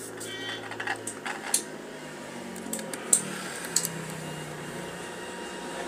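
Low steady electrical hum from a mains-powered amplifier, with a few light clicks and taps of handling on the workbench.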